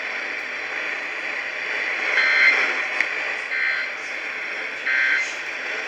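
Emergency Alert System end-of-message signal: three short bursts of buzzy two-tone SAME digital data, a little over a second apart, over steady radio static. These bursts mark the end of the alert broadcast.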